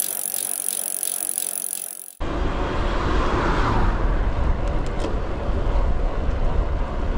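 Wind buffeting the microphone, with steady tyre and road noise from a bicycle riding along a tarmac road. It starts abruptly about two seconds in, after a hiss with light regular ticking, and a few brief clicks come near the middle.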